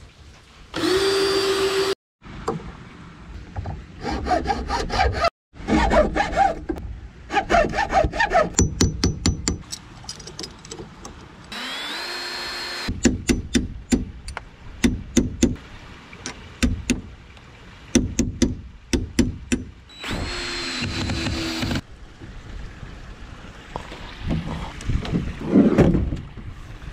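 Carpentry tool sounds in a string of short clips. A cordless drill spins up in three brief bursts, and between them come runs of quick, evenly repeated strokes of hammering and sawing on wood.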